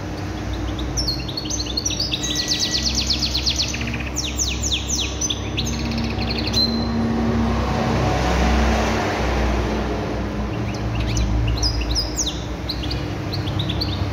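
Domestic canary singing a goldfinch-style (maqnin) song: fast trills and rapid runs of repeated high notes. The first phrase starts about a second in and runs to just before the middle; a shorter phrase comes near the end. A steady low hum runs underneath.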